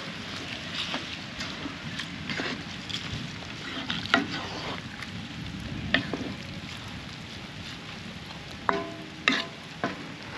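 Food sizzling in a pan while a utensil stirs and scrapes through it, with a few ringing clinks near the end.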